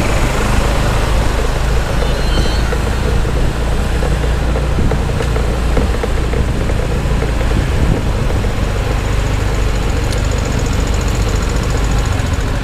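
Motorcycle engine idling steadily in a traffic jam, a continuous low hum amid the engines of the surrounding vehicles.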